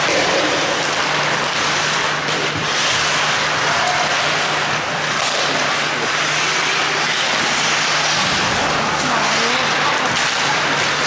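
Ice hockey skate blades carving and scraping on the ice during play, a continuous hiss, over a steady low hum.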